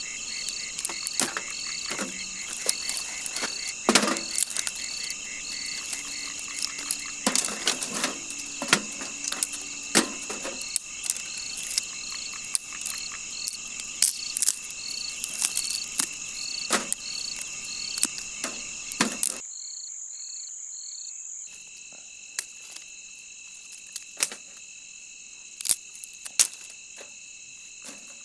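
Night chorus of crickets and frogs: steady high trilling with a call repeating about twice a second. Scattered sharp clicks and snaps sound over it. About two-thirds of the way through, the sound suddenly thins out to the high trilling alone.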